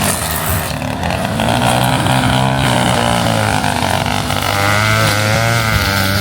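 A vehicle engine running steadily, with a wavering higher whine over it in the second half.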